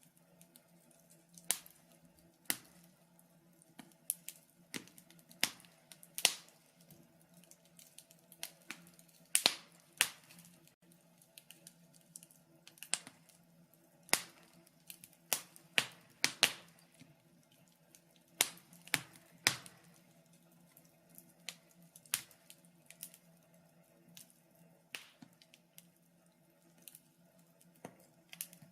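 Wood fire burning in a fire pit, crackling with irregular sharp pops of varying loudness, a few much louder than the rest, over a faint steady low hum.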